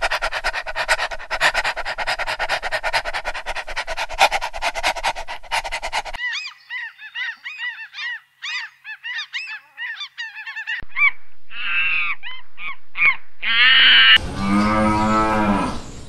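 A string of animal sounds. First comes a dense run of rapid clicks and rattles for about six seconds. It cuts off and gives way to many short bird calls, then a few louder honking calls. Near the end a cow gives one long low moo.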